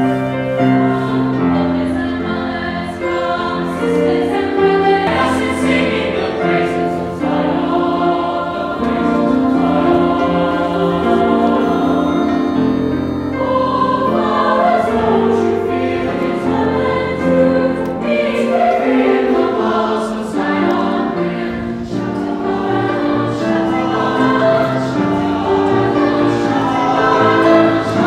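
Mixed youth choir singing in harmony, held chords that move together, accompanied by a grand piano.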